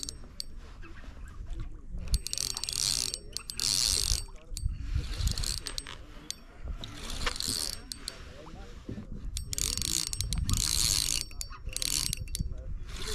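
Spinning reel being cranked in repeated short bursts of about a second, its gears whirring, with light ticks in between.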